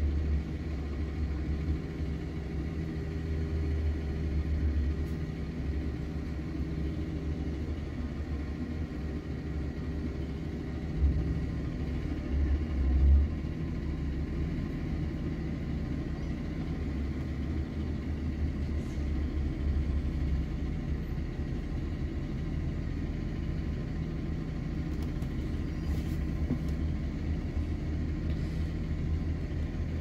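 Steady low rumble of an idling vehicle engine, heard from inside the cab, with a brief louder surge about eleven seconds in and another about thirteen seconds in.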